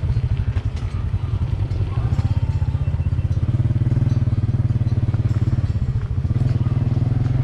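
Small motorcycle engine running under way, its exhaust pulsing rapidly; it picks up about two seconds in and again a little later, eases briefly near six seconds, then pulls again.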